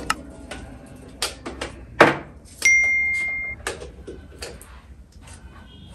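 A few sharp clicks of switches and knobs being worked, then a single high electronic beep about a second long that fades away.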